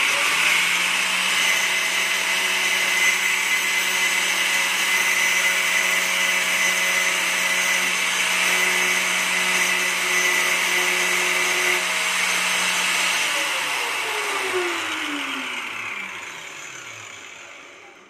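Angle grinder running at full speed as it grinds down a small metal clutch bush to loosen a tight bearing fit. About two-thirds of the way through it is switched off and winds down, its whine falling in pitch as it fades out.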